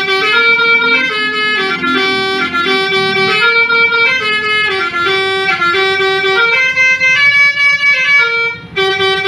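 300-watt digital electric basuri horn playing a melody: a string of loud held notes stepping up and down in pitch, with a brief break near the end.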